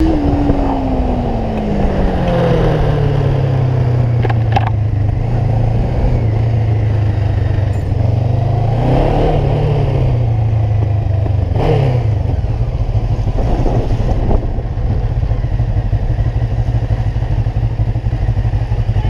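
Honda CB500's parallel-twin engine running at low speed while the motorcycle is ridden. The engine note falls as the throttle is rolled off in the first few seconds, then holds steady, with a brief rise and fall about nine seconds in. Two short clicks come about four and a half and eleven and a half seconds in.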